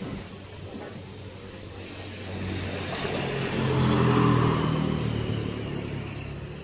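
A small motorcycle passing by on the road, its engine growing louder to a peak about four seconds in and then fading away, over steady street noise.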